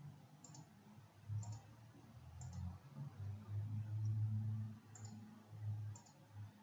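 Computer mouse button clicks, about one a second, placing points of a free-hand selection outline. Under them runs a low, uneven rumble that is loudest through the middle.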